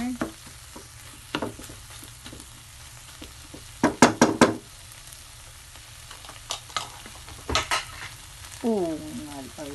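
Wooden spatula stirring and scraping a tuna, onion and chili mixture in a nonstick frying pan over a steady low sizzle. A cluster of quick, louder strokes of the spatula against the pan comes about four seconds in, and two more a little past seven seconds.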